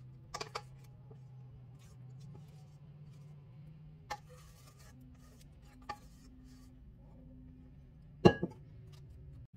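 Scattered light clicks of a kitchen utensil working meringue mixture out of a mixing bowl onto a lined baking tray, ending in one sharp knock and a smaller second knock near the end. A low steady hum runs underneath.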